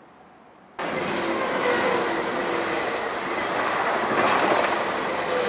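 Electric train running close by, cutting in abruptly less than a second in after faint quiet: a steady rushing rail noise with several held whining tones over it.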